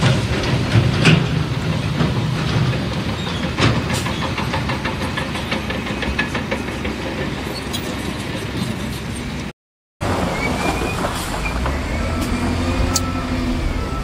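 SDLG wheel loader's diesel engine working under load as its bucket shoves broken rock, with rocks clattering and knocking against each other and the steel bucket. The sound cuts out for about half a second partway through, and short evenly spaced beeps of a backup alarm come in near the end.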